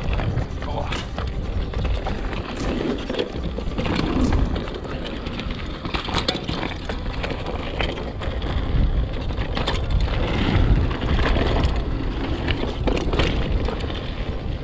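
Mountain bike rolling down a loose gravel trail: tyres crunching over stones, with repeated sharp clattering knocks from the bike over bumps and a steady low rumble.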